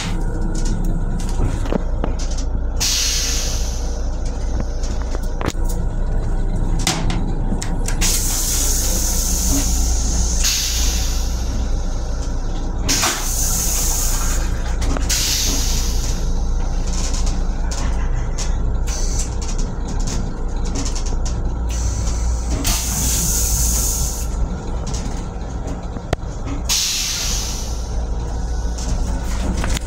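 Steady low rumble of an M7 commuter railcar heard from its restroom, broken every few seconds by short hisses, each lasting a second or two, with a few light clicks.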